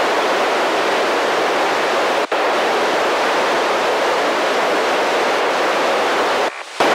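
Steady FM radio hiss from a handheld receiver tuned to the SO-50 amateur satellite downlink, heard between transmissions with no station talking. It cuts out briefly about two seconds in and again just before the end.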